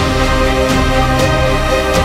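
Cinematic orchestral background music with sustained chords and a steady pulse.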